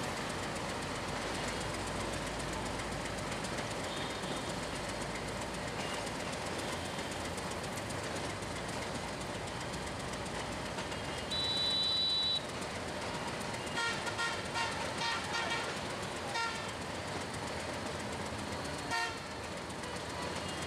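Steady rumble of a passenger train moving slowly through a railway yard. About eleven seconds in, a horn sounds one high blast of about a second, followed shortly after by a quick string of short toots and a single toot near the end.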